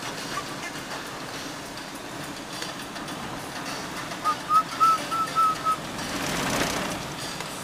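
Car driving along a street: steady road noise, with a quick run of six short high beeps about four seconds in. Near the end a whoosh swells and fades.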